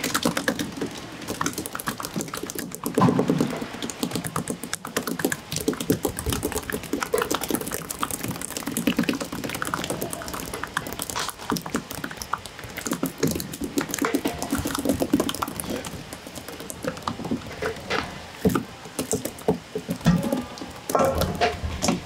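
Live mackerel thrashing on a wet plastic cutting board, their tails and bodies making rapid runs of wet slaps and taps, with handling knocks on the board.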